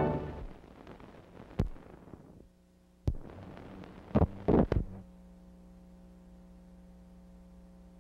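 The last note of an orchestral film score dies away, then a few sharp clicks and pops from the old soundtrack, a cluster of them about four seconds in. A faint steady low hum follows.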